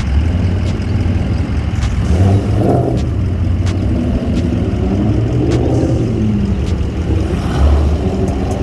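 Car engines driving past, with the engine note climbing and then falling as cars accelerate and move through, over a steady low rumble.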